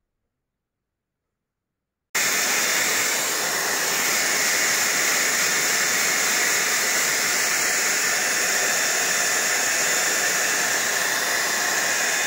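Dead silence, then a handheld hair dryer comes on abruptly about two seconds in and blows steadily with an even rushing hiss, drying wet watercolour paint.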